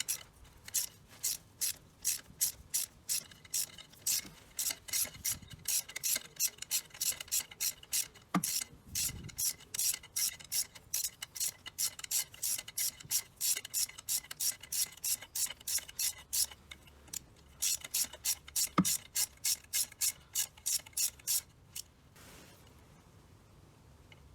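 3/8-inch ratchet wrench clicking rapidly as it turns a thin-wall 14mm spark plug socket on an extension, screwing a new spark plug into the cylinder head. The clicks come about three a second with two short pauses and stop near the end.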